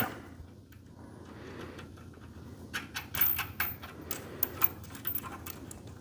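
Light metallic clinks and rattles of a steel lifting chain and a bolt being worked through its links by hand, an irregular run of clicks starting about three seconds in.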